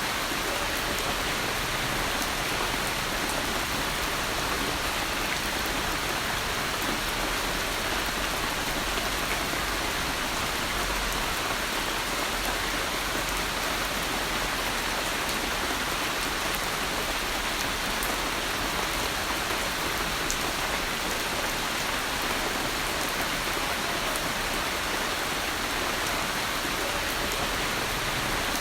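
Steady rain falling, an even hiss with faint scattered drop ticks throughout.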